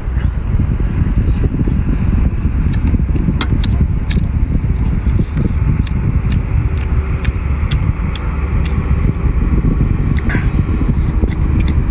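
Loud chewing and mouth sounds of someone eating: many irregular sharp wet clicks and smacks over a steady low rumble.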